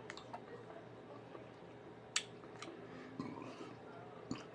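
Faint eating sounds at a table: a few small, sharp clicks and soft mouth noises over quiet room tone.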